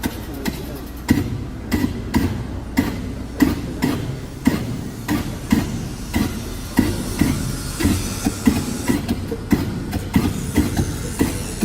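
Repeated sharp metallic-sounding knocks, about two to three a second and unevenly spaced, over a steady low rumble.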